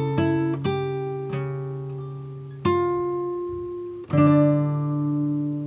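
Background music on acoustic guitar: a few plucked notes, then two chords about a second and a half apart, each left to ring out.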